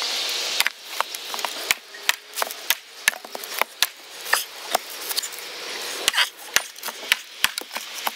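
A wooden mallet knocking on the back of a hatchet driven into a log, with sharp cracks from the wood as the split is worked open. The loudest knocks come roughly once a second, among many smaller clicks and cracks.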